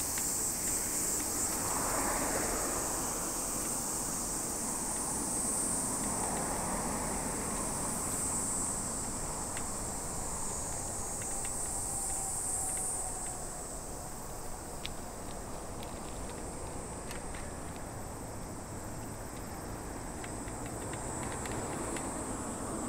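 Insects chirring steadily in one high-pitched band, over a low wash of road and wind noise. The chirring grows fainter about halfway through.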